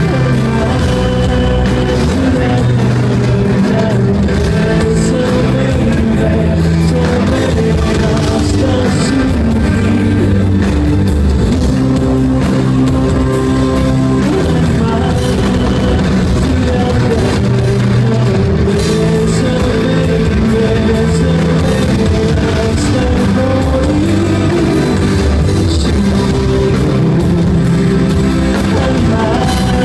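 Live rock band playing loudly: electric bass, acoustic and electric guitars and drum kit, with a male lead singer, heard from the audience.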